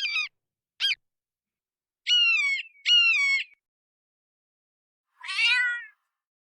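An animal calling five times with short, high-pitched cries: two brief ones at the start, two longer ones that fall in pitch about two seconds in, and one more near the end.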